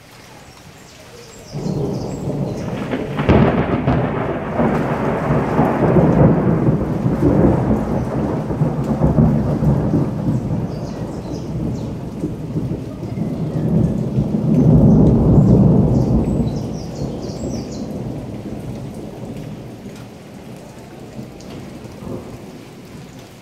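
Thunder from a lightning strike over steady rain. A sudden rumble starts about a second and a half in and sharpens into a crack about two seconds later. A long rolling rumble follows, swells again past the middle, and fades near the end.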